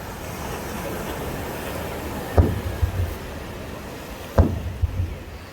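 Two aerial fireworks shells bursting about two seconds apart, each a sharp bang followed by a low rumbling echo, over a steady background of crowd and outdoor noise.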